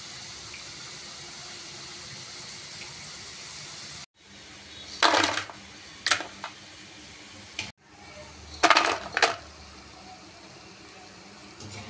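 Bitter gourd pakoda sizzling steadily in hot frying oil as a perforated steel skimmer lifts them out. Twice after that, a short burst of metal clatter as the skimmer tips the fried pieces into a steel bowl, with the oil still sizzling underneath.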